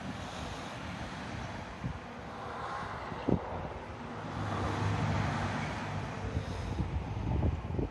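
Wind buffeting the microphone with a low rumble over a rushing noise that swells and fades in the middle, and a short knock about three seconds in.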